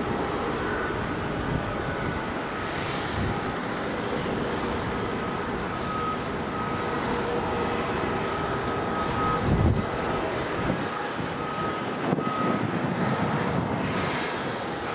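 Steady jet aircraft noise across an airport apron: a continuous hum with a thin, wavering whine, and a brief low rumble about ten seconds in.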